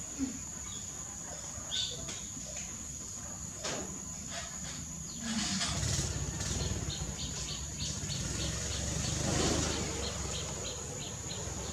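Steady high-pitched insect drone, with a run of short chirps repeating about three times a second in the second half and a few light clicks and rustles earlier. A low rumble comes in about halfway through.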